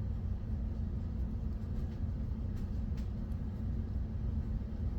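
Steady low background rumble with a couple of faint clicks; the music playing in the earbuds does not come through.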